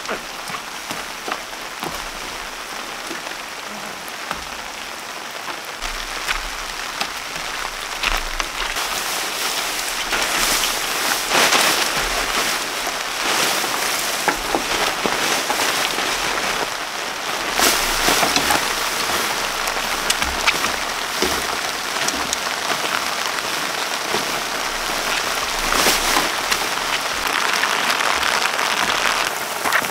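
Rain falling: a steady hiss of many pattering drops that grows heavier about nine seconds in.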